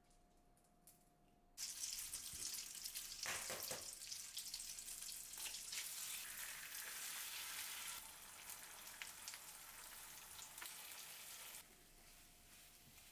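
Egg frying with mayonnaise and ketchup in a small rectangular tamagoyaki pan: a sizzle starts suddenly about a second and a half in, with a few light knocks a couple of seconds later. The sizzle eases after about eight seconds and drops lower near the end.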